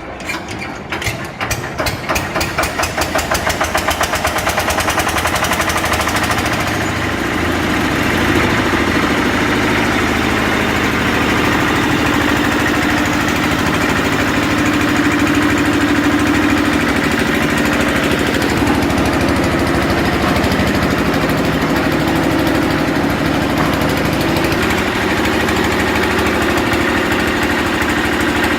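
Concrete mixer's engine starting up: its beats quicken and grow louder over the first few seconds, then it runs steadily.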